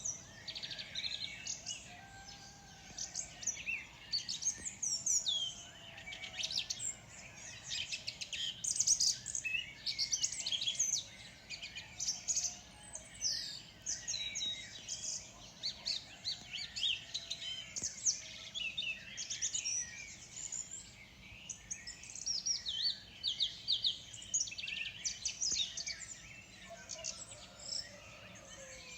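Several birds chirping and singing at once in a morning chorus: a dense run of quick, high chirps and trills, overlapping and never stopping, over a faint steady hiss.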